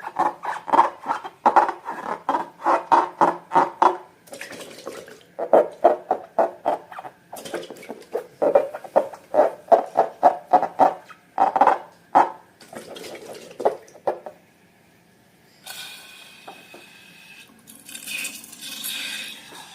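Slime being squished and worked by hand in a quick run of wet squelching strokes, about four or five a second. Near the end the strokes stop and give way to a brief, higher hissing scrape.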